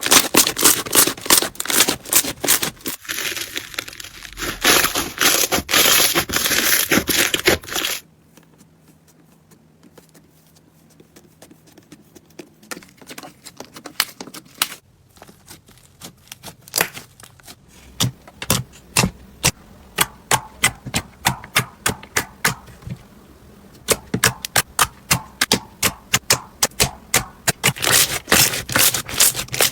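Slime being squished and pressed, giving rapid crackling and popping clicks. The clicking drops to faint for several seconds about eight seconds in, then builds back to dense, quick clicks.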